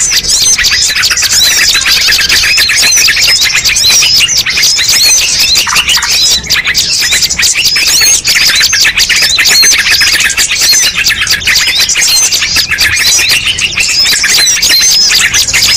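Dense chorus of many small songbirds chirping and calling at once, rapid high chirps overlapping without a break: a mixed-species bird-lure (pikat) recording.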